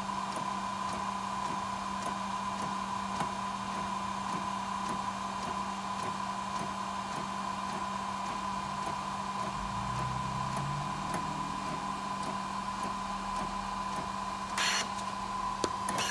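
Fujifilm DX100 Frontier-S inkjet photo printer running as it feeds out a long print: a steady motor hum with a constant high tone and faint regular ticks. A lower motor note joins for a moment about ten seconds in, and there is a short hiss near the end.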